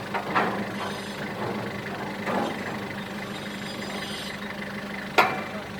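An engine runs steadily at idle, with a sharp knock about five seconds in.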